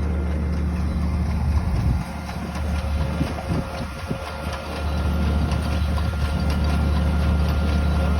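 A motor running steadily with a low hum, dropping in level for a few seconds in the middle.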